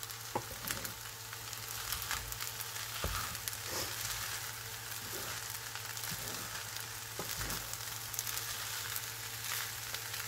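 Fried rice sizzling steadily in a hot pan as it is stirred, with scattered clicks and scrapes of a spoon against the pan.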